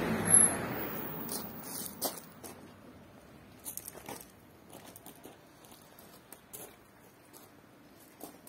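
A car passing on the road fades away over the first second or so, with a sharp knock about half a second in; then only faint, scattered clicks and crackles.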